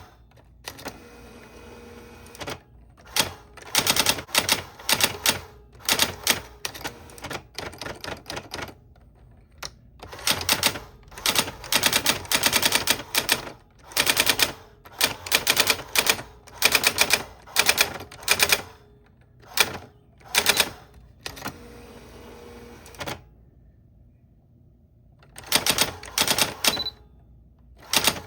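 Old typewriter being typed on: quick runs of sharp key strikes in bursts, broken by short pauses and one longer pause near the end.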